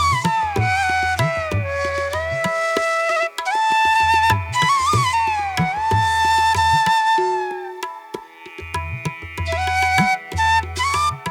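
Background music: a bamboo-flute-style melody with long gliding notes over tabla-like hand-drum strokes, in a South Asian traditional style.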